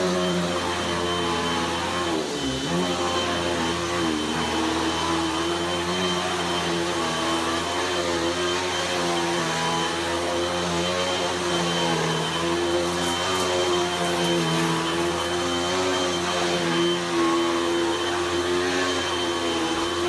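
Upright vacuum cleaner running on carpet, its motor pitch wavering slightly as it is pushed back and forth, with a brief dip in pitch about two and a half seconds in.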